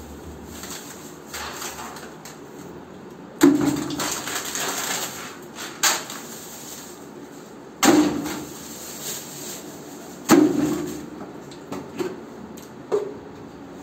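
Items dropped from a plastic bag into a plastic bucket: five sharp knocks spaced a few seconds apart, each with a short hollow ring. The first knock is followed by a couple of seconds of noise.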